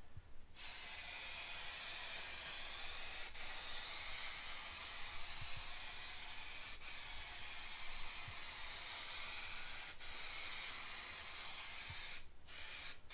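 Aerosol spray paint can hissing in one long continuous spray, with a short break near the end before spraying again.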